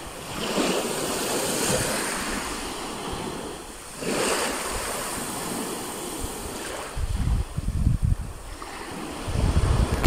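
Sea waves washing onto the shore, swelling twice, about half a second and four seconds in. Near the end, wind buffets the microphone in low rumbling gusts.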